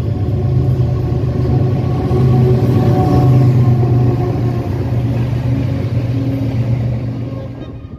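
Diesel locomotive engine running steadily with a deep, even rumble, growing a little louder then easing off and fading near the end.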